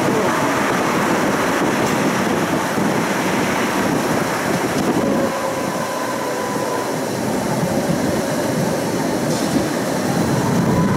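Budapest tram running along its rails, heard from on board: a steady rumble of wheels on track mixed with wind and passing road traffic. A faint thin whine comes in for a few seconds in the middle.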